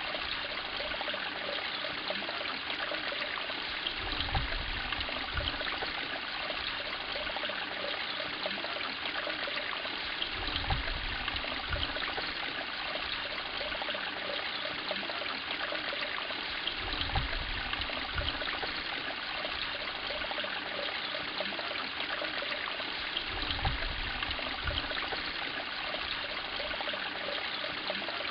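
Steady running, trickling water of a koi pond, with a few brief low rumbles.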